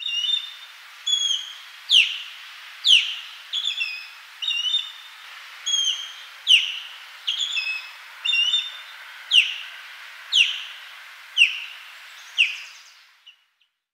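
Osprey calling: a series of sharp whistled notes roughly once a second, some slurring steeply downward and others short clipped chirps, over a faint steady hiss. The calling stops shortly before the end.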